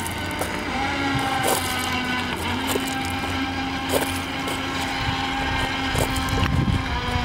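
Radio-controlled speedboat's motor running as the boat speeds across the water, a steady whine with small shifts in pitch as it turns. Low wind rumble builds near the end.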